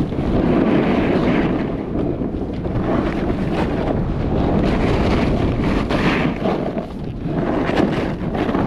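Wind rushing over the microphone of a snowboarder riding downhill, with the board's hiss over the snow swelling and easing through the turns.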